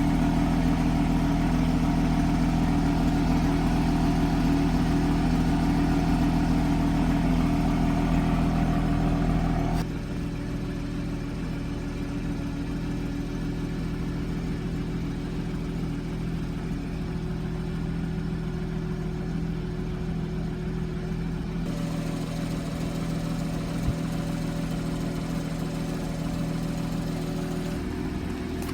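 2014 Porsche Boxster S's naturally aspirated 3.4-litre flat-six idling steadily through its exhaust. It drops to a quieter idle about ten seconds in, with no revving.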